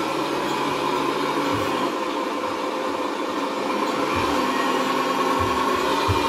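Tamiya Mercedes-Benz Actros radio-controlled truck running as it drives across the floor: a steady whir that rises in pitch about four seconds in.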